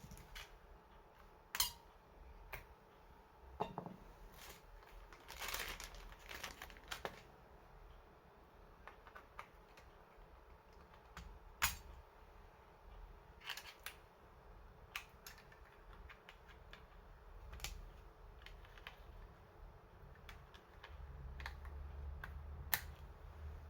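Scattered sharp clicks and light taps of a Fujitsu Lifebook U574 laptop's case and small parts being handled during a RAM and hard drive upgrade, a second or more apart. A low hum comes up near the end.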